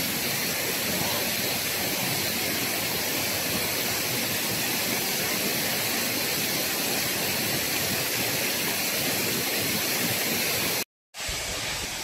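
Steady rushing hiss of fast-flowing water from a jungle waterfall or stream, with a brief dropout near the end.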